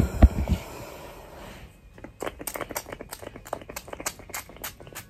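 Pump spray bottle of anti-itch scalp spray spritzed rapidly and repeatedly close to the scalp and braids, a quick run of sharp spritzes about five a second starting about two seconds in. A few low thumps of the bottle and phone being handled come first.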